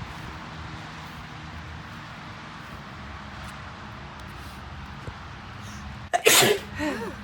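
A woman sneezing once about six seconds in: a sudden loud burst of breath followed by a short, falling voiced tail, over a steady low hum.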